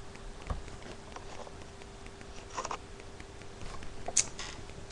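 Quiet room with a faint steady hum and a few scattered small clicks and rustles.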